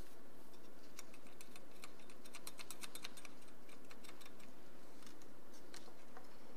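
Light, irregular clicks and ticks as a feeler gauge and straightedge are handled against the bearing's outer ring and the gearbox flange face while the bearing protrusion is measured. The clicks are thickest around the middle and sit over a steady low hum.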